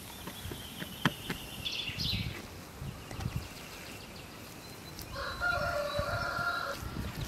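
A rooster crows once, a single held call of under two seconds beginning about five seconds in. Before it there are faint bird chirps and a few light knocks.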